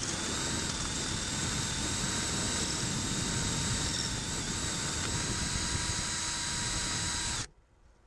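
Electric drill running at steady speed, its 1 1/8-inch paddle bit boring a hole through a 2-inch PVC end cap: a constant motor whine over a rough cutting noise. It stops suddenly near the end.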